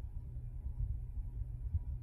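Ceiling fan running steadily: a low, even hum with a slight unsteady flutter.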